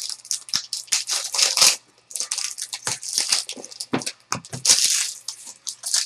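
A trading-card pack's foil wrapper being handled and torn open by hand: irregular bursts of crinkling and tearing with brief pauses.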